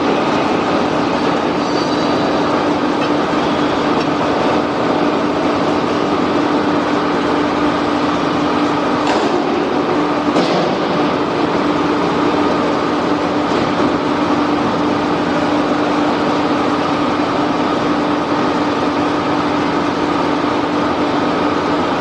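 Steady machinery noise with a constant low hum, and two faint clicks near the middle.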